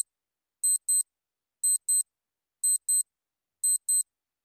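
Countdown-clock sound effect: pairs of short, high-pitched ticks, a tick-tock about once a second, against silence.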